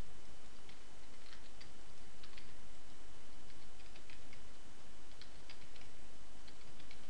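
Scattered, irregular clicks of a computer keyboard and mouse being worked, over a steady background hiss.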